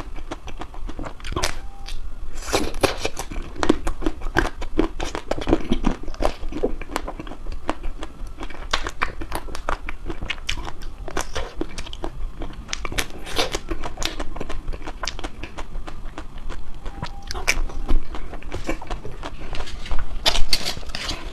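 Close-up chewing of crispy ice cream: a dense run of crunches and crackles, louder in bursts several seconds in and again near the end.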